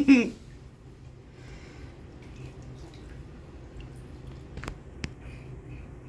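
A baby's short vocal sound effect at the start, falling in pitch. Then a quiet bathtub with faint water noises and two sharp drips about four and a half and five seconds in.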